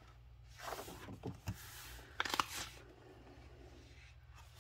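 Paper pages of a coloring book being turned: a few soft swishes and a crisper rustle about two seconds in, faint.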